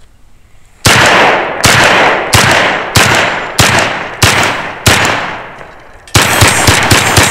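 SDS Imports Lynx 12 semi-automatic 12-gauge AK-pattern shotgun firing: seven loud shots at a steady pace about two-thirds of a second apart, then a rapid string of quick shots about six seconds in as the magazine is emptied.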